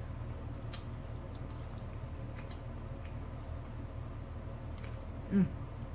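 Soft chewing and small mouth clicks from people eating a burger, over a steady low room hum; a short vocal sound near the end.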